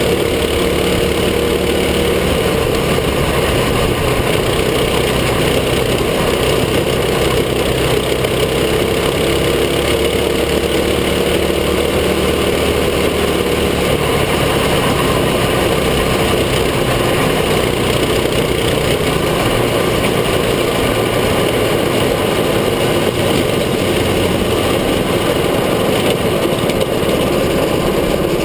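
Mini sprint racing kart's small engine running hard, heard from on board, steady in loudness with its note wavering a little as the kart goes through the bends.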